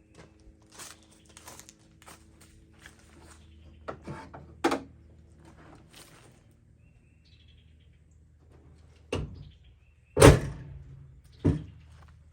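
A few separate thunks and knocks, the loudest about ten seconds in, over a faint low hum.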